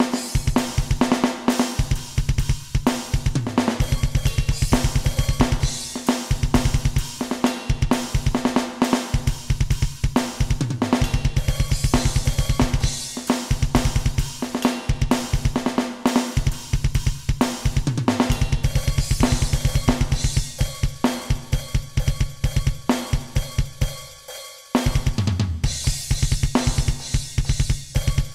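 Alesis Nitro Mesh electronic drum kit played with custom sampled drum sounds, recorded directly rather than through a microphone: long runs of fast double-kick strokes under snare hits and cymbals. The playing drops off briefly near the end, then picks up again.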